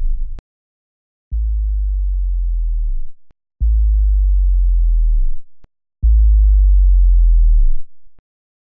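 Three deep sub-bass tones in the edited soundtrack, each lasting nearly two seconds. Each starts suddenly and cuts off sharply, with dead silence between them.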